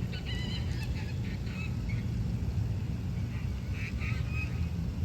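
Waterfowl calling: a run of short calls in the first two seconds and a few more about three and a half seconds in, over a steady low rumble.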